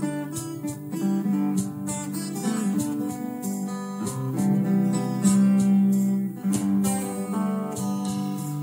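Acoustic guitars strumming an instrumental break between sung verses of a rock song, with the band playing along in steady strokes.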